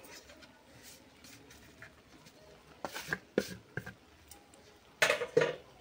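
Quiet kitchen handling at a steel cooking pot: a few soft clicks and faint scratchy rustling around the middle, then a short, louder knock and scrape of a plate near the end.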